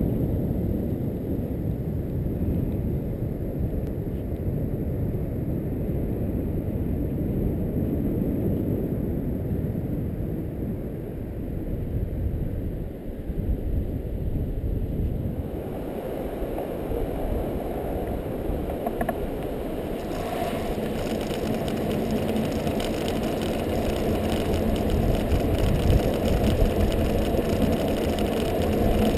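Wind rushing over the camera microphone. About two-thirds of the way in, a kite buggy is rolling over firm beach sand, adding a steady rumble and a fine, rapid rattle that grows louder toward the end.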